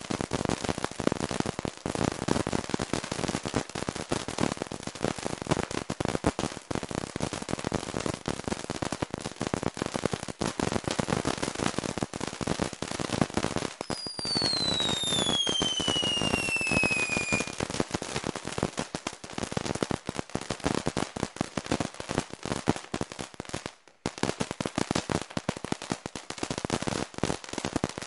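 Ground fountain firework spraying sparks with dense, continuous crackling. About halfway through, a whistle glides down in pitch for a few seconds. The crackling drops out briefly near the end, then resumes.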